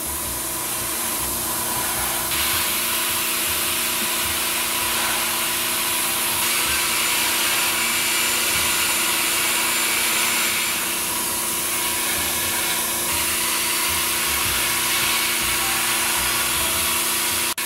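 Paasche H airbrush spraying red ink at about 25 PSI, a steady hiss of air, over the steady hum of a small airbrush compressor. The hiss grows stronger about two seconds in and eases again toward the last third.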